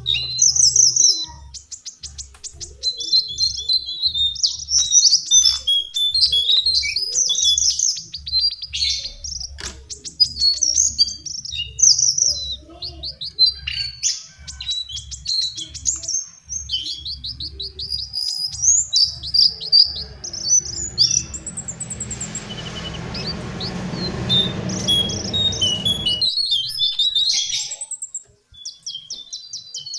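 Lesser shortwing singing: continuous jumbled phrases of fast, high chirping notes. From about two-thirds of the way in, a hiss lies under the song for several seconds and then cuts off suddenly.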